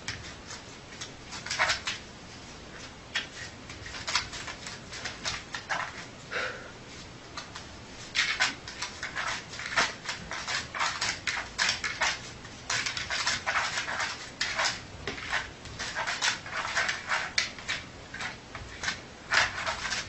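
A dog making many short, sharp sounds in irregular clusters, some in quick runs of several a second.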